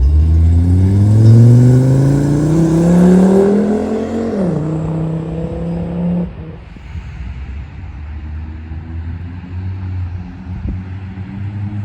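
Volvo 850 T5's turbocharged 2.3-litre inline-five accelerating hard through an OBX turboback exhaust, its pitch climbing for about four seconds. The pitch then dips sharply and holds steady, and about six seconds in the engine falls away to a quieter low drone.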